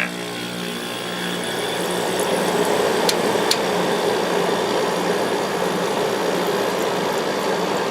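1995 Kenmore 5,450 BTU window air conditioner just after switch-on: its Sanyo compressor hums steadily while the GE PSC fan motor blows air, the airflow building over the first couple of seconds. Running smooth, with two light clicks about three seconds in.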